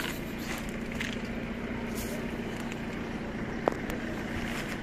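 Steady low hum of a running motor over outdoor street background noise, with scattered faint clicks and one sharp click about three and a half seconds in.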